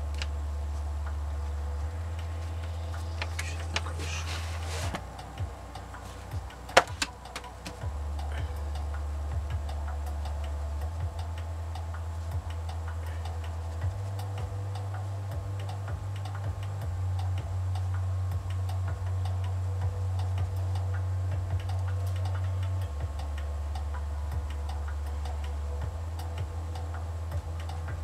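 Faint, frequent ticking over a steady low hum, with one sharper click about seven seconds in.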